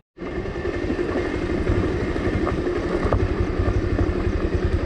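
Motorcycle engine running with the bike under way: a steady, even low throb with road and wind noise over it, after a split-second dropout at the very start.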